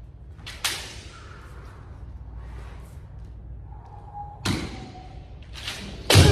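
Kendo sparring: bamboo shinai striking and feet stamping on a wooden floor, sharp separate cracks about half a second in and around four and a half seconds in, then a louder strike with a stamp near the end as a player lunges in, a shout just beginning with it.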